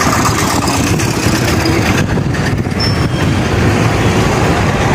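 Steady engine and road noise of a vehicle riding through city traffic.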